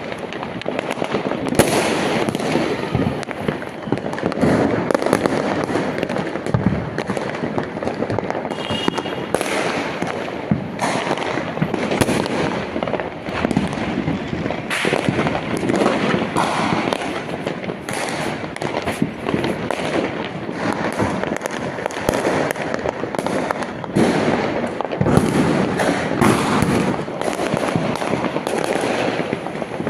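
Firecrackers and fireworks going off in rapid, continuous succession: dense crackling packed with many sharp bangs.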